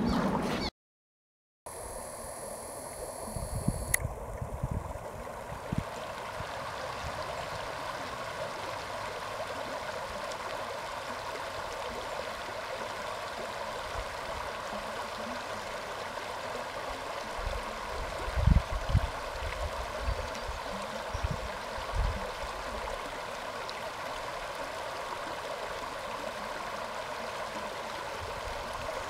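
Shallow creek water running steadily over a rocky riffle, with a few low thumps on the microphone. The sound cuts out completely for about a second near the start.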